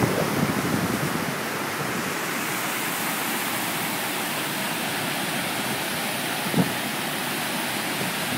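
Floodwater of a swollen river rushing over falls: a steady, loud rush of churning whitewater.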